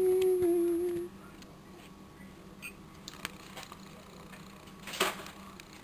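A person hums one steady note for about a second. Then come faint clicks of dishware as food is tipped from a bowl onto a paper plate, with a short clatter about five seconds in.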